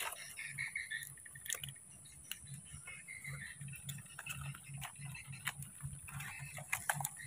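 Faint outdoor ambience: a steady high whine, a low drone pulsing about three to four times a second, scattered faint chirps and a few sharp clicks.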